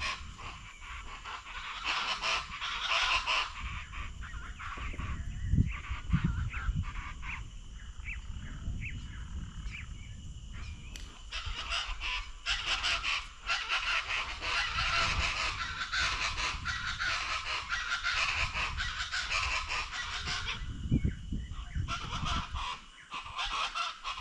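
A dense chorus of many wild birds calling at once: harsh, raucous calls overlapping without pause, easing briefly near the end.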